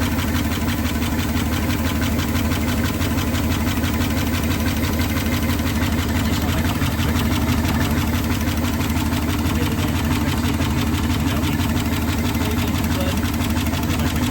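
Dodge W200 pickup's 318 V8 idling steadily.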